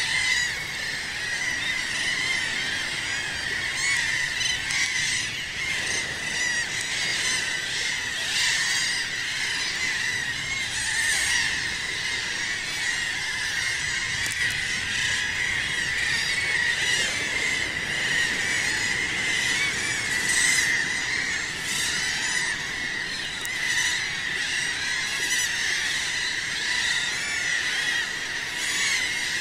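A large seabird colony calling: a dense, unbroken din of many overlapping cries at a steady level.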